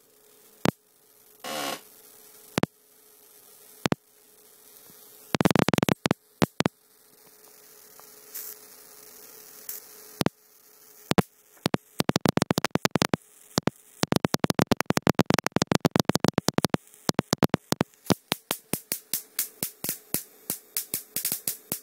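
High-voltage sparks snapping across a homemade spark gap fed by a flyback transformer, charging a tubular capacitor made of two nested pipes. The snaps come singly with pauses at first, with a short dense crackle about six seconds in, then turn into a fast, irregular run of cracks, several a second, from about halfway. A faint steady hum runs underneath.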